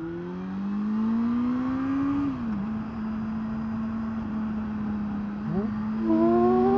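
Motorcycle engine pulling away and accelerating: the engine note climbs, drops sharply at an upshift about two seconds in, then holds steady. A brief dip comes about five and a half seconds in, after which the note climbs again, louder.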